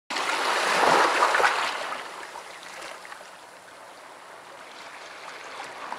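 Small sea waves washing in over rocks and pebbles on a stony shore: one wave splashes loudly in the first two seconds and fades out, and the next swells up near the end.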